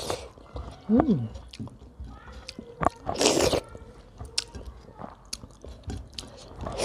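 Close-miked eating by hand: wet chewing, lip smacks and small clicks as fingers mix rice and curry on a plate. A short hummed "mm" comes about a second in, and a brief breathy rush of air about three seconds in.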